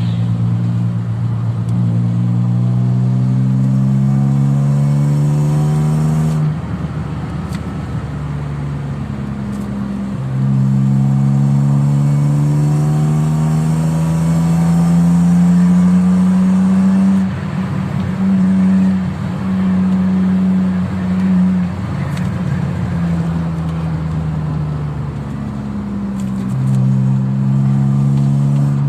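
Car engine running under load, its pitch climbing slowly as it speeds up, dropping suddenly about six seconds in and climbing again, then wavering and settling.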